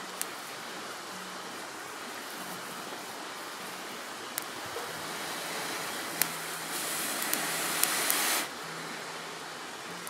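A person blowing into a bundle of dry grass and down around a smouldering bow-drill ember to coax it into flame: a steady rush of breath that swells louder for a second or two near the end, with a few faint clicks.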